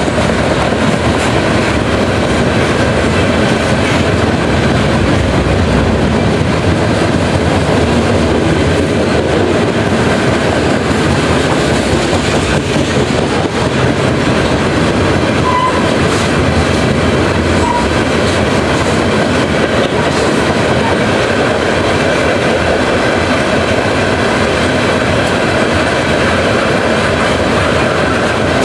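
Freight train of tank cars rolling steadily past: a continuous loud rumble and rattle of steel wheels on the rails.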